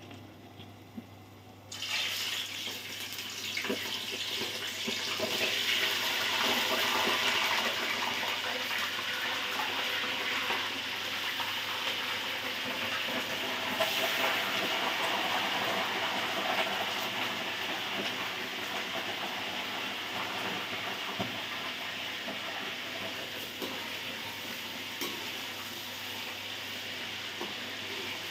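Raw chicken pieces sizzling in hot ghee in a steel karahi. The sizzle breaks out suddenly about two seconds in as the chicken hits the fat, then keeps on, easing slowly, with a few light clicks of pieces and utensils.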